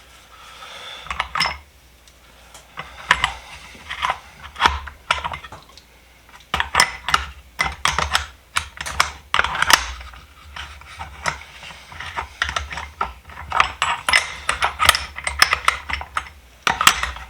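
Vintage steel sockets, extensions and a universal joint clicking and clinking in irregular clusters as they are fitted one by one into their case.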